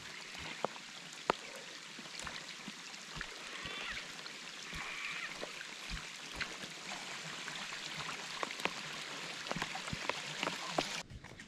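Steady hiss of moving river water with scattered sharp ticks and taps. The hiss drops away suddenly near the end.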